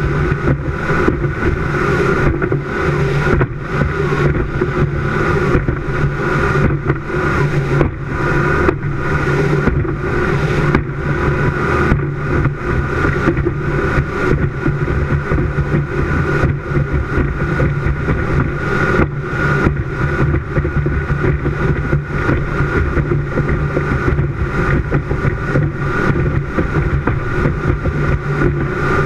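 Speedboat running at high speed: a steady engine drone under rushing wind and water noise that flutters constantly.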